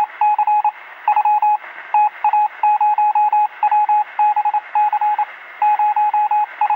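Morse code beeps: a single tone keyed on and off in rapid dots and dashes over a steady hiss, with the narrow, tinny sound of a radio receiver.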